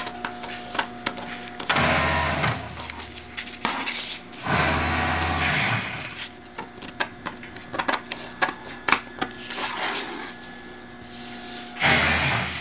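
Scissors snipping through kraft-paper pattern paper in a run of short crisp cuts, broken three times by louder rustling of the paper sheet being handled.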